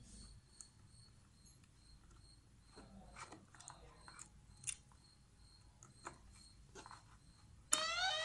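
Faint clicks and taps from handling the wires and phone. Near the end, the cable-fault app's siren alarm starts from the phone's speaker, rapid rising sweeps several a second, signalling that a fault has been detected in the cable.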